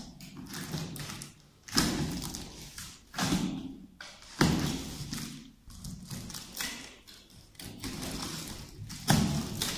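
Box cutter slitting the packing tape along a cardboard box's seam, with thumps of hands pressing on the cardboard: several separate short strokes, the loudest about two, three, four and a half and nine seconds in.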